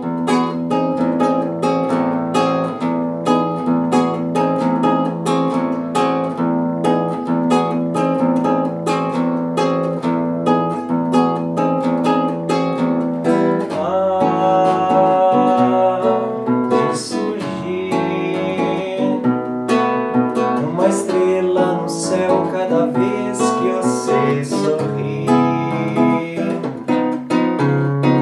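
Classical guitar with nylon strings, fingerpicked in a steady, evenly paced pattern. About halfway in, a man's voice joins, singing in Portuguese over the guitar.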